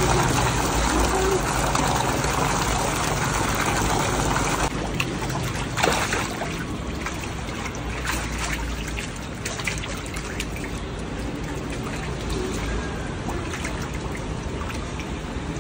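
Water trickling and churning in a tub crowded with live fish thrashing. It is louder for the first few seconds, then softer, with a few short splashes about five and six seconds in.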